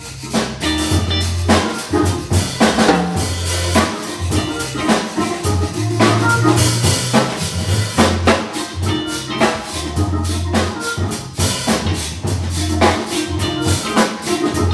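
Live blues from an organ trio: an organ carrying the bass line in long low notes, with electric guitar and a drum kit keeping a busy beat.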